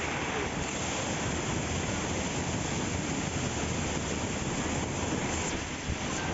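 Waterfall pouring right beside the microphone: a steady, unbroken rush of falling water.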